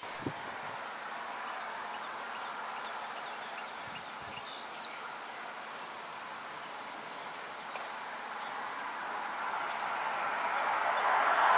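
Steady roadside background noise with a few short, high bird chirps, twice in quick runs of three. Over the last few seconds a vehicle on the highway comes nearer and grows steadily louder.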